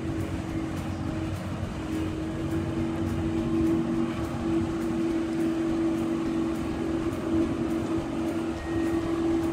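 A boat's engine running steadily: a continuous drone with a held hum over a wash of noise.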